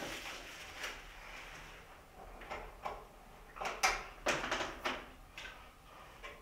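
A series of short knocks and scrapes, the loudest about four seconds in.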